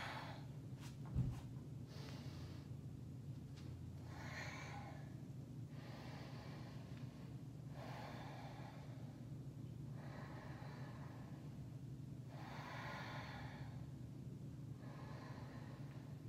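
A person's slow, audible breathing during yoga poses, each breath a soft hiss coming every couple of seconds over a steady low hum. A single thump sounds about a second in.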